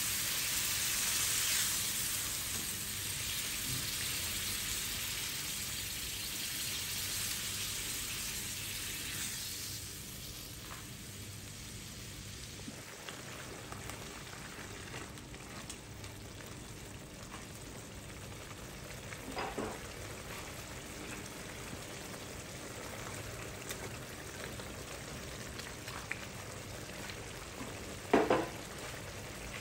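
Tomato and chickpea sauce sizzling in a nonstick frying pan while a spatula stirs it. The sizzle is louder at first and settles to a quieter steady hiss after about ten seconds. There are two brief knocks later on, and the second, near the end, is the loudest.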